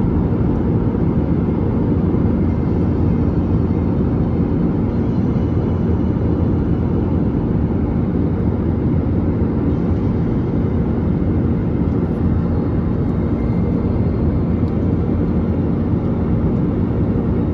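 Steady cabin noise of an Airbus A321-200 in flight, a loud, even rush of engine and airflow noise heard from inside the cabin, with a low steady hum under it.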